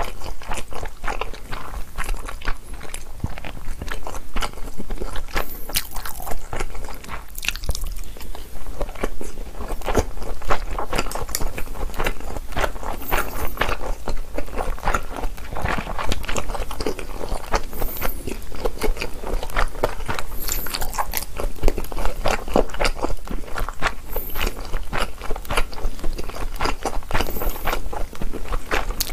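A person chewing mouthfuls of Chapagetti black-bean instant noodles, close-miked: a continuous run of wet, sticky clicking mouth sounds.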